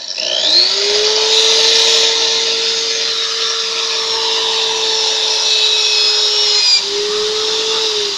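Corded Makita electric drill, mounted as a homemade lathe, speeding up about half a second in and then running at a steady speed with a high motor whine. Its speed dips briefly about seven seconds in, and it begins to wind down right at the end.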